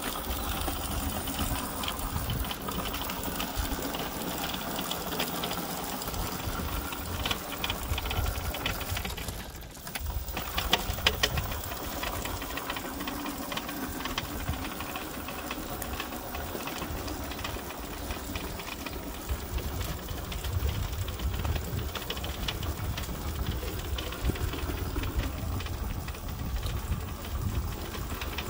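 Electric go kart driven by a car alternator converted to a motor, whirring steadily as it pulls a loaded trailer along wet tarmac. The whir briefly drops about ten seconds in, followed by a few sharp knocks.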